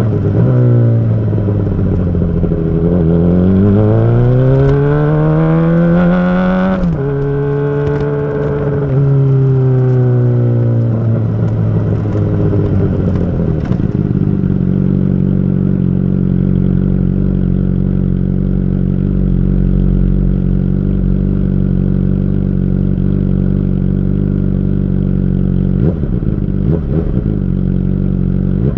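Honda CBR600RR inline-four through a Yoshimura RS5 full exhaust system with the baffle in: the revs dip, then climb steeply and drop sharply at about seven seconds, as at a gear change, hold, and fall away again. From about fourteen seconds the engine runs with a steady low note.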